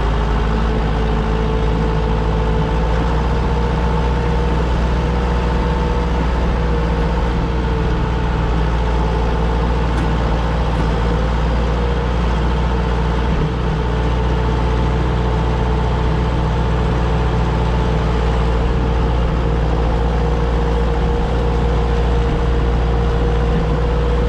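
Diesel engine of a John Deere 6400 loader tractor running steadily while clearing snow, a constant low rumble with a steady whine over it.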